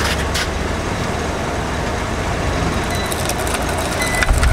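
Car creeping forward slowly on concrete with a steady low engine rumble, with a few short clicks at the start and more near the end.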